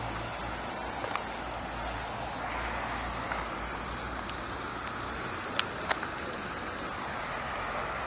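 Steady rushing of water during a flood, with a few short sharp clicks: one about a second in and two louder ones close together near the sixth second.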